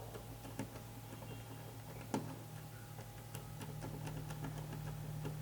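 Faint, scattered small clicks and taps from handling the track feeder's wires and plastic parts, over a low steady hum.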